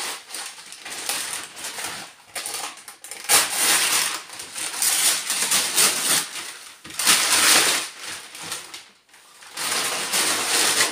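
Brown cardboard packaging being torn open by hand: several loud rips with crinkling and rustling in between.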